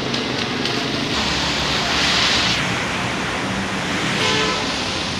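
Rainwater gushing down off a road bridge and splashing below: a steady rushing hiss, a little louder for a second or so near the middle.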